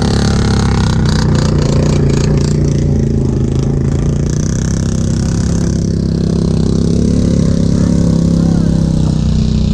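ATV engine running at a steady, fairly high speed, with a rattle of sharp knocks in the first couple of seconds.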